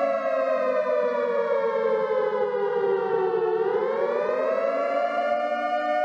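Outdoor tornado warning siren sounding a steady, sustained wail that slides down in pitch for about three and a half seconds, then rises back up to its full pitch about five seconds in and holds there.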